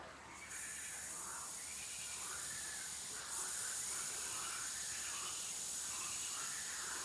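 Fine air bubbles from a DIY microporous-hose diffuser fizzing up through shallow pond water in a steady high hiss. The hiss starts about half a second in and gets louder a little after three seconds, as the bubble plume breaks the surface.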